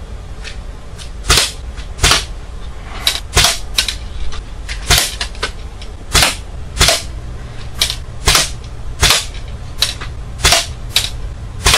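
UTG L96 bolt-action spring airsoft sniper rifle being fired again and again during a shooting test. It gives a series of sharp snaps and clicks, some in pairs about half a second apart, about one to two a second, over a steady low hum.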